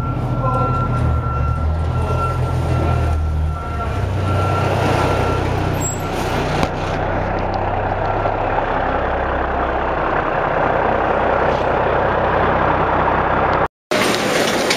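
Fire truck's diesel engine running: a deep steady hum for about four seconds, then a broader rushing noise as it carries on. The sound cuts out for a moment near the end.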